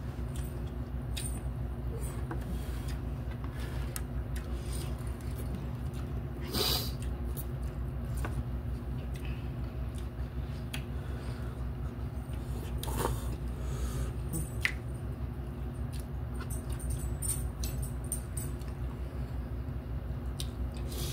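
Eating sounds: plastic forks clicking and scraping in paper cups of instant ramen, with chewing and a couple of louder noodle slurps about 7 and 13 seconds in, over a steady low hum.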